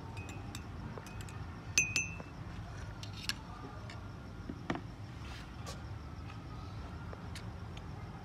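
Metal teaspoons clinking against small glass teacups as the tea is stirred: a scatter of sharp clinks, the loudest about two seconds in with a brief glassy ring, over a low steady hum.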